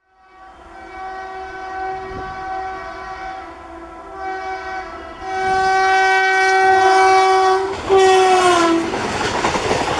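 Indian electric locomotive's horn sounding several long blasts, much louder from about five seconds in, the last one sliding down in pitch as the train passes. Then the loud rush and rattle of the train going by.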